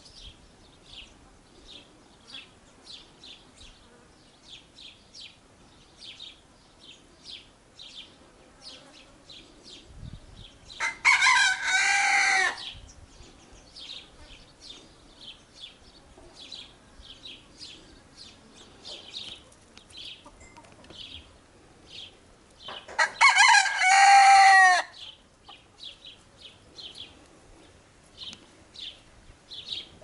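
A white rooster crowing twice, about a third of the way in and again a little past two thirds, each crow lasting about two seconds. Short high chirps repeat throughout in the background.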